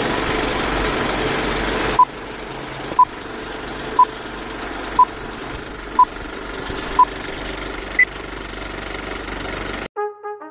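Old film projector clattering steadily under a film-leader countdown: a short beep once a second, six times, then one higher beep. Just before the end the clatter cuts off and brass music begins.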